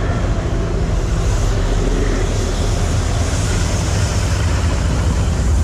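Diesel locomotive's engine running with a steady low rumble as it hauls a train of passenger coaches close by and beneath.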